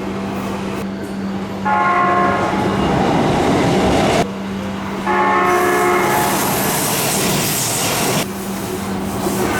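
Seibu Railway train horns: two loud blasts, each a chord of several steady tones lasting about three seconds and cutting off abruptly, starting about a second and a half and five seconds in, over the rumble of a passing train. They are warning blasts sounded by trains approaching a sharply curved, blind station platform.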